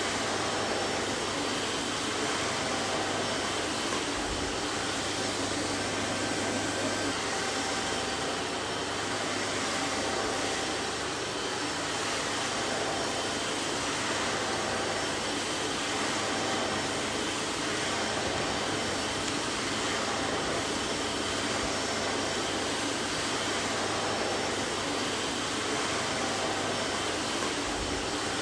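Vacuum cleaner running steadily: an even rush of air with a constant low hum beneath, unchanging in loudness.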